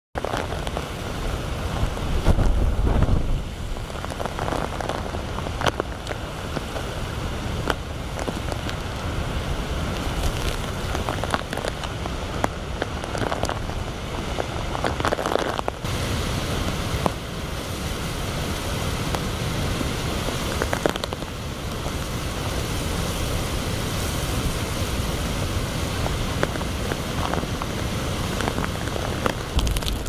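Heavy typhoon rain pouring down in strong wind, with gusts that rumble low and rise and fall. The loudest gust comes about two to three seconds in.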